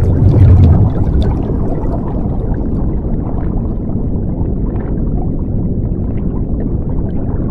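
Underwater water-and-bubbles ambience: a steady low rumble with bubbling crackle, swelling louder about half a second in as a mass of bubbles rushes up.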